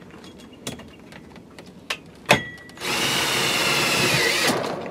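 Cordless screw gun driving a size 8 self-tapping screw into the awning's bottom bar. There are a few light clicks and one sharp click, then the drill runs for just under two seconds in the second half, its pitch sagging briefly just before it stops.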